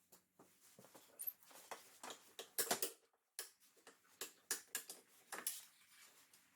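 Scattered light clicks and knocks at irregular intervals, with a small cluster of louder ones just before the three-second mark.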